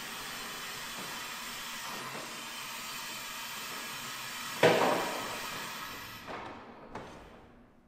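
Challenger two-post hydraulic car lift lowering a car: a steady hiss of fluid bleeding back through the lowering valve. About halfway through comes a loud clunk that rings off, then the hiss stops, followed by a smaller knock.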